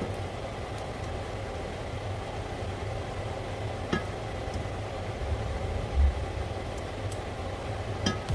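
Vegetables stir-frying in a stainless steel frying pan: a steady low hum under a quiet sizzle, with the spatula clicking against the pan about four seconds in and again near the end.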